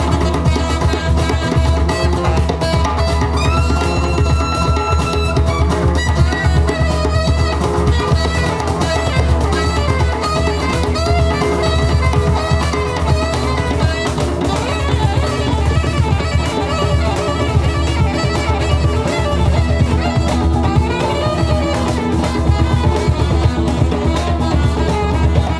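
A live band playing Georgian music, with a drum kit keeping the beat under a full band. A long held high note sounds about three seconds in.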